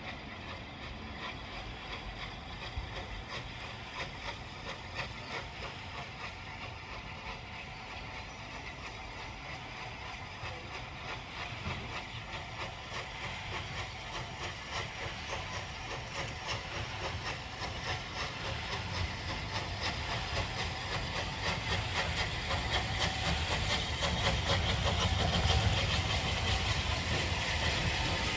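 Steam locomotive approaching, its steam noise and rumble growing steadily louder.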